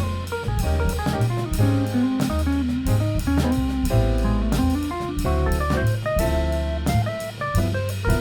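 Instrumental jazz from a small band: a drum kit with cymbals keeping time under a bass line and a busy melody line of quick notes.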